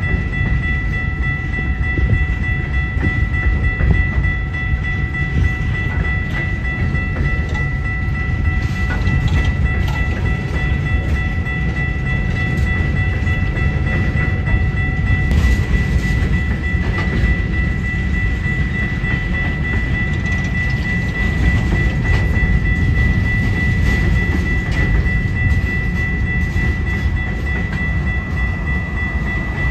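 Freight train of open-top coal cars rolling steadily past at close range: a continuous low rumble of wheels on rail with occasional clicks, and a steady high-pitched ring running over it.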